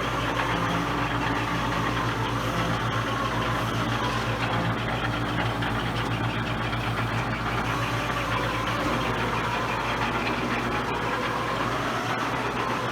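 Cincinnati 20-inch standard metal shaper running under power from its 5 hp three-phase motor, a steady mechanical hum with a fine rapid pulsing.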